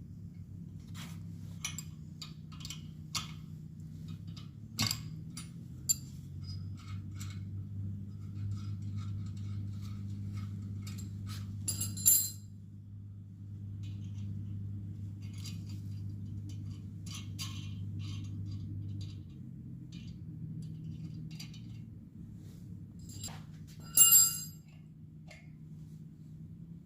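Metal parts clinking and tapping, with sharper clinks about twelve seconds and twenty-four seconds in, over a steady low hum that drops in pitch and later comes back up.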